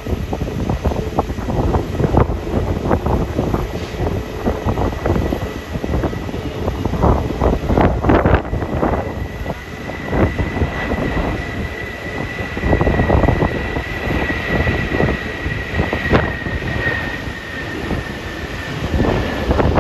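Malaysia Airlines Airbus A330-200 jet engines running with a steady high whine that falls slightly in pitch near the end, under heavy gusty wind buffeting the microphone.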